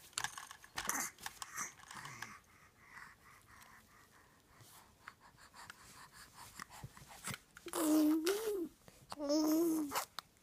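A baby of about five and a half months blowing raspberries with the tongue: sputtering, spitting bursts at first, then two loud voiced buzzing raspberries about eight and nine and a half seconds in.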